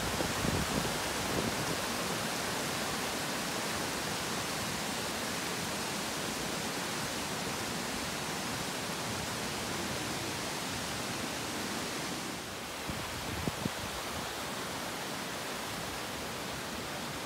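Steady rush of fast-flowing river water, dipping briefly about twelve seconds in.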